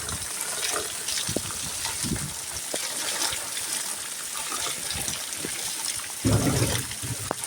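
Heavy rain pouring down, with water gushing and splashing and scattered drips. A brief louder low sound comes near the end.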